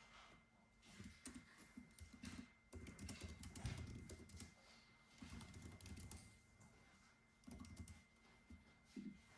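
Computer keyboard typing, quiet, in runs of keystrokes with short pauses between them; the busiest run falls in the middle. A faint steady tone sits underneath.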